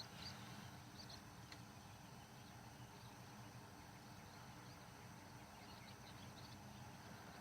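Near silence: faint outdoor background hiss, with a few faint, short high chirps near the start and again about six seconds in.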